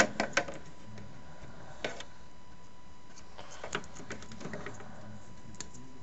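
Light scattered clicks and taps of a SATA power connector being lined up and pushed onto a hard drive while the drive is handled: a few at the start, one about two seconds in, and more small ones later on.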